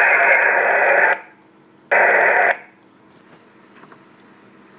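Loud, narrow-toned hiss from a 144 MHz amateur radio transceiver's speaker. It cuts off abruptly about a second in, comes back for about half a second, then stops, leaving only a few faint clicks.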